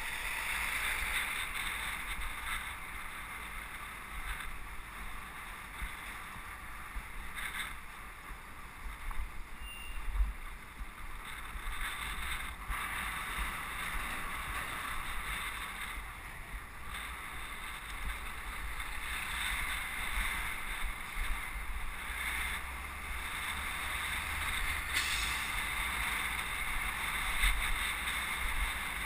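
Steady rushing noise of a ride on a moving bicycle: wind buffeting the bike-mounted camera's microphone, with low road rumble and a few short knocks.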